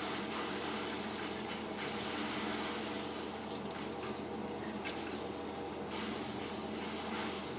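Steady running water in a turtle tank, with a low hum under it and a few faint drips or ticks scattered through.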